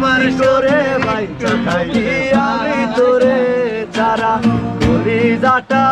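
Recorded Bengali folk-style song: a wavering lead melody over a steady percussion beat, between sung lines.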